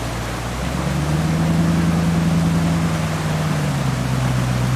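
Land Rover Discovery V8 engine pulling under load as the truck crawls up a rocky stream bed; the engine note rises about a second in and then holds steady. Rushing stream water hisses underneath throughout.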